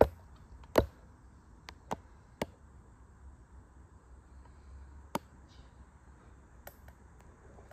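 A few scattered sharp clicks and taps over quiet room tone, the loudest about a second in, from hands and tools working around a small motorcycle's greasy front sprocket and chain.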